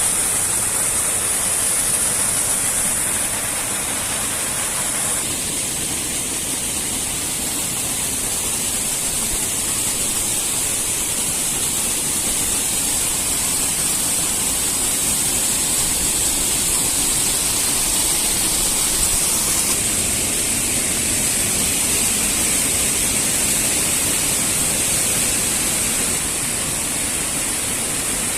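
Steady rushing of a mountain waterfall, a dense, even roar of falling water whose tone shifts a few times.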